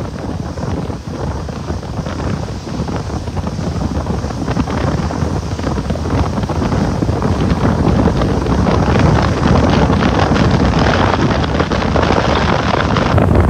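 Steady wind noise buffeting the microphone of a boat under way, mixed with the run of its motor and water along the hull, growing slightly louder across the stretch.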